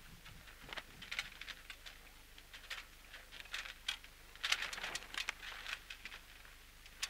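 Small waves splashing and lapping against the hull of a sailing yacht under way: irregular soft splashes and crackles, with a busier spell about two-thirds of the way through.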